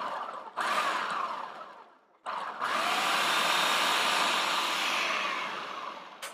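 Food processor motor pulsed in short bursts and then run for a few seconds, its blade chopping garlic, shallot and habanero in red wine vinegar; the last run fades as the motor spins down near the end.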